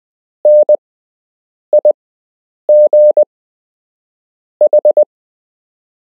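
Morse code sent as a single steady beep keyed on and off: the letters N (dash-dot), I (dot-dot), G (dash-dash-dot) and H (four dots), each letter a short group with clear gaps between letters.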